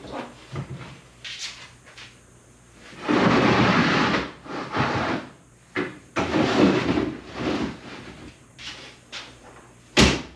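Things being handled: irregular rustling swishes and knocks, with one sharp bang near the end.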